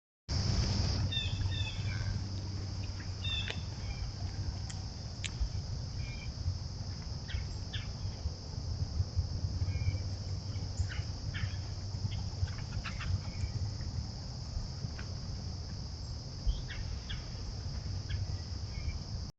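A steady, high-pitched insect chorus of crickets, with scattered short bird chirps over a low, steady hum.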